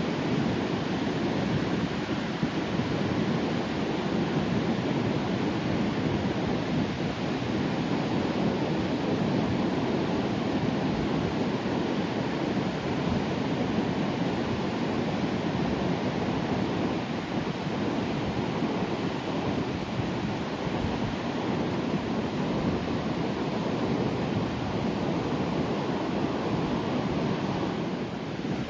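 Sea waves breaking calmly on the shore: a continuous wash of surf that swells and eases gently.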